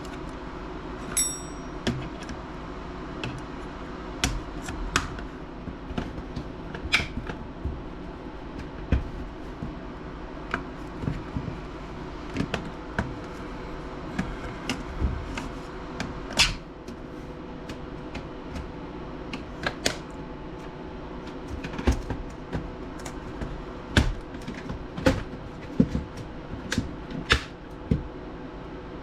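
Irregular clicks and taps of plastic and metal laptop parts being handled and pried apart with small tools, over a steady low hum.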